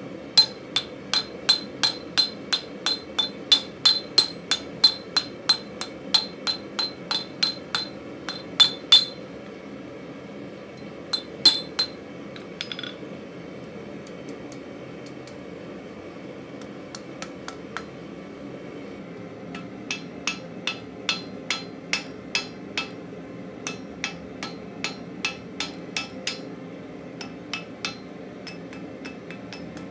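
Hand hammer striking red-hot mild steel on an anvil, about two blows a second, each with a bright metallic ring. A run of heavy blows drives the piece into a swage block. After a pause of several seconds, a run of lighter blows shapes the opener's ring over a cone mandrel.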